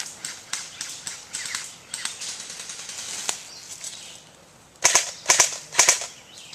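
Airsoft guns firing: scattered fainter pops at first, then about four loud sharp shots in quick succession past the middle.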